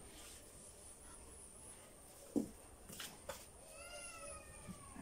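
A single drawn-out, fairly high-pitched animal call in the last second or so, gently falling in pitch, after a few faint knocks.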